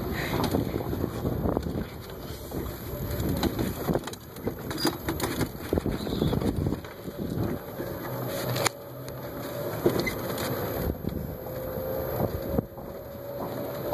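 Golf cart driving along, heard as wind and rubbing noise on the phone's microphone, with scattered knocks and bumps. A faint steady whine rises slowly in pitch over the second half.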